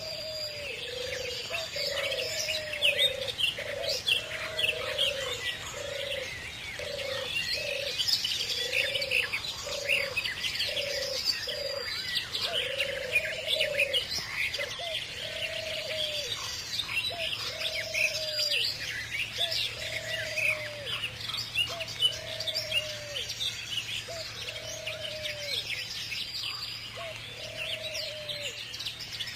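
Many small birds chirping and twittering together, over a low, repeated arched call sounding about once a second or so.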